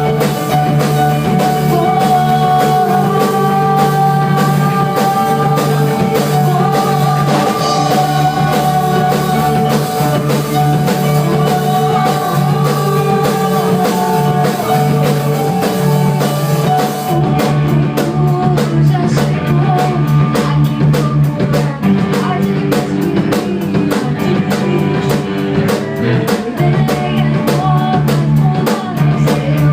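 Rock band playing: drum kit with steady beats, guitars and bass. About seventeen seconds in the cymbal wash drops away and the arrangement changes.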